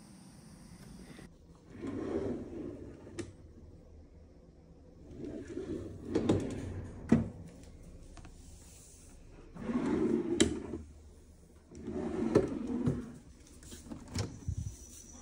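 Wooden drawers and cabinet doors sliding open and shut about five times. Each is a short rumbling slide that mostly ends in a sharp knock.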